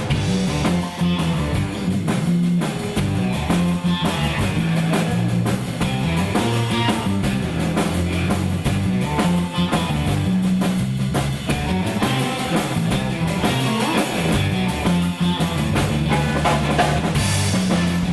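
Live blues band playing an instrumental break: drum kit keeping a steady beat under electric guitar, with a walking low bass line.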